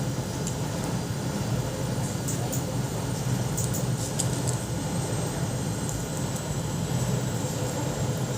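Steady low hum of background noise, with a few faint light clicks.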